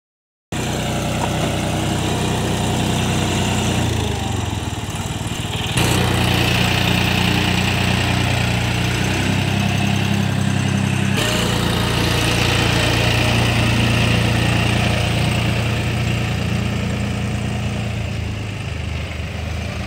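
John Deere 5075E tractor's diesel engine running at a steady speed.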